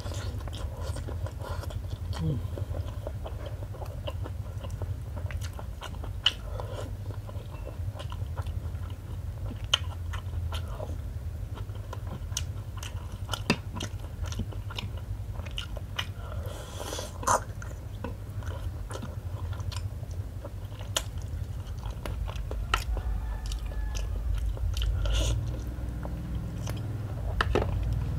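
Close-miked chewing and biting of a person eating rice and curry by hand, with many sharp wet mouth clicks and smacks over a low steady hum.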